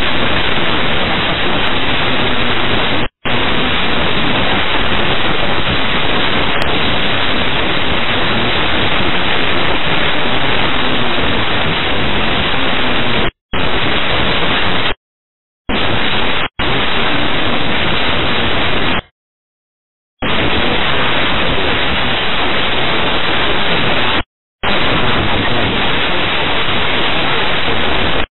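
Air-traffic-control radio channel carrying loud, even static hiss with no voice, cutting out abruptly into dead silence about half a dozen times and coming straight back.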